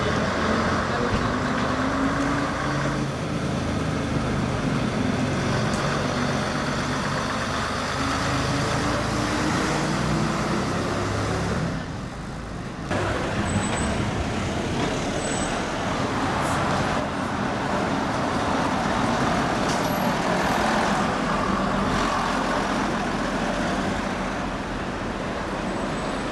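Street traffic with the diesel engines of vintage London buses running. In the first part one bus engine's note rises slowly as a red Routemaster double-decker drives up the street. About twelve seconds in the sound drops briefly at a cut, and more traffic and bus engines follow.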